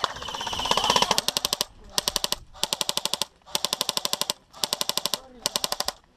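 Airsoft gun firing on full auto: about six short bursts of rapid clicking shots separated by brief pauses.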